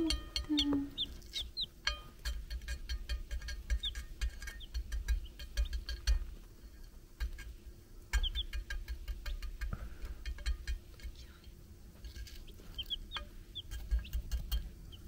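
Young chicks giving a few short, high peeps, a few at a time about a second in and again near the end, over scattered clicks and taps.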